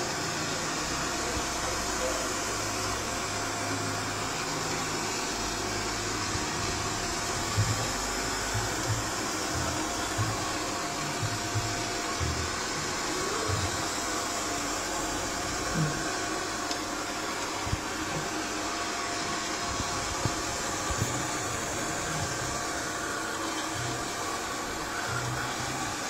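Robot vacuum cleaner running steadily with an even whirring hum from its motor and brushes, with a few soft low knocks scattered through it.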